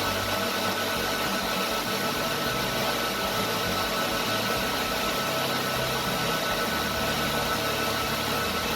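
Cooling fans of racked radio and TV transmitter equipment running: a steady rush of air with a few steady high tones over it.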